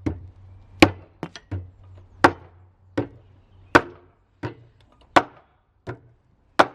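Repeated sharp metal knocks, about a dozen in a steady rhythm of roughly one every 0.7 seconds, alternating louder and softer, as of hammer blows on engine parts being worked loose. A low hum fades out about two seconds in.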